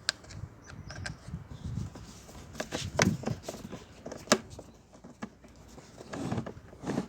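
Sharp plastic clicks and knocks, a handful at irregular intervals, from the vacuum cleaner's push-button power switch being pressed and its housing handled while the repaired switch is tried by hand; the motor is not running.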